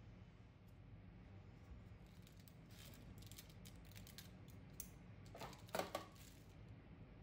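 Faint crinkling and clicking of a plastic piping bag being handled, with one brief louder crinkle about three-quarters of the way through, over a low steady hum.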